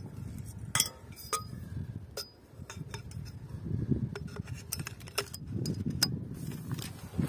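Metal tent-pole sections clinking and tapping together as they are slotted into one another: a string of about ten sharp, light clinks, some with a brief ring, over a low rustling.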